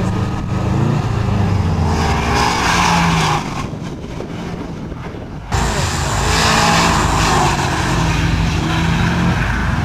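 Subaru Impreza sedan's engine revving hard through a cone slalom, its pitch rising and falling as the throttle is worked. The sound drops away about three and a half seconds in, then cuts back in abruptly at full level about two seconds later.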